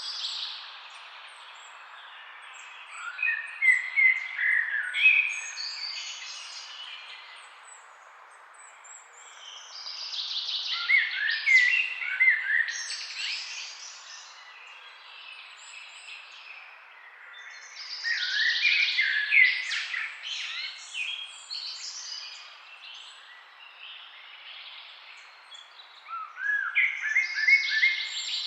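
Songbirds chirping and trilling in bouts that come about every eight seconds, over a steady hiss of forest ambience.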